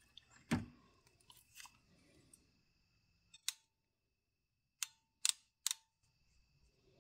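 A bump of handling noise about half a second in, then a few sharp clicks from a ratcheting crimping tool's ratchet as its handles are squeezed to close the die on a heat-shrink butt connector. A faint steady high tone lies underneath.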